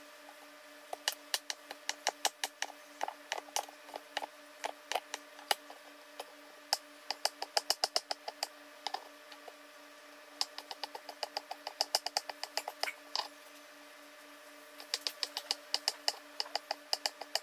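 Large kitchen knife chopping boiled sheep offal on a cutting board: quick runs of sharp knocks, several a second, broken by short pauses, over a faint steady hum.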